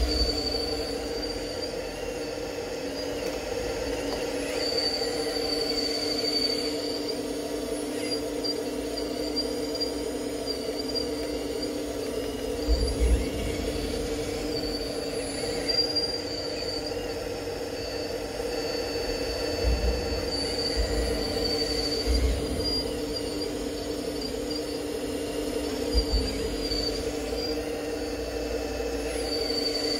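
Radio-controlled Liebherr 954 model excavator running: a steady motor hum with a high whine that comes and goes, and a few dull thumps.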